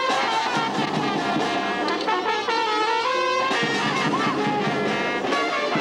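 A brass band playing a tune, with sustained brass notes carrying the melody.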